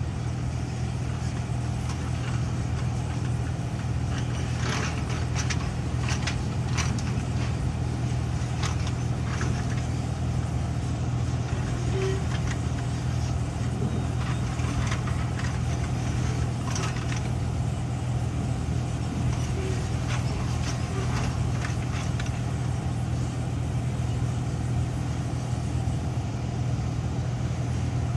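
Maintenance-of-way excavator's diesel engine running steadily under load while it removes railroad ties, with scattered sharp knocks and clanks through the middle of the stretch.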